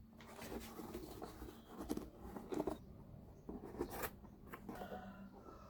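Cardboard being handled and worked by hand: irregular scraping and rustling, with scattered sharp clicks.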